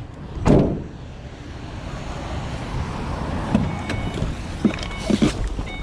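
A loud thump, then a van's engine running steadily, with a few clinks and knocks of metal being handled.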